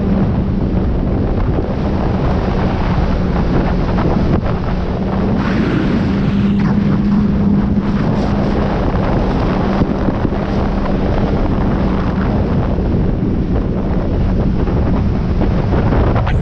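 Jet ski engine running at a steady speed, with a constant hum, under heavy wind buffeting on the microphone and rushing water.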